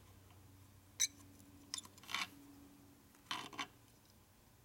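Small metal clicks and scrapes from pliers and a steel clip and gear being worked onto a shovelhead's oil pump drive shaft. A sharp click comes about a second in, then two lighter clicks and a short scrape, and another short scraping rattle about three and a half seconds in.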